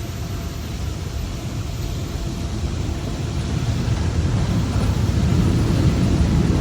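Heavy freight train climbing a grade: a deep, steady rumble that grows steadily louder.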